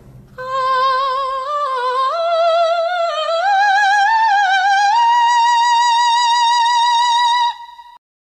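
A woman singing a wordless, operatic line with wide vibrato, climbing step by step to a high held note that cuts off abruptly near the end.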